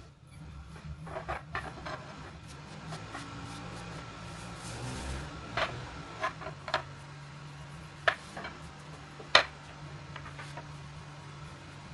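A thin metal rolling rod clicks and knocks against a tabletop while a sheet of floured dough is wrapped onto it, with soft rubbing of hands on the dough. There are scattered sharp knocks, the loudest near the end, over a low steady hum.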